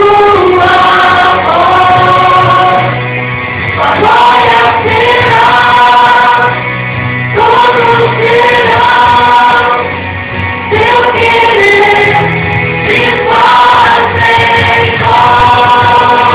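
Christian gospel song: a choir singing sustained phrases over instrumental backing.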